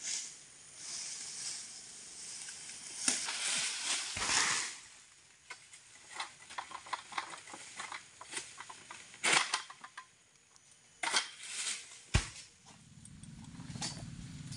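Oil palm fronds rustling and cracking as they are cut, with scattered sharp snaps, a heavy thud about twelve seconds in and a low steady hum starting near the end.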